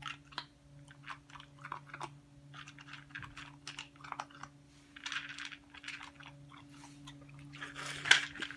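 A dog crunching dry kibble from a plastic bowl: irregular crunches and clicks, over a faint steady hum.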